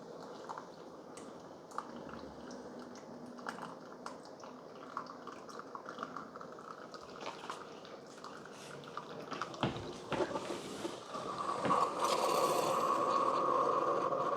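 Keurig K-Supreme Plus Smart single-serve coffee maker brewing a K-Cup: irregular gurgling and dripping of the brew. About eleven seconds in, a louder steady machine whir sets in as the brew nears its end.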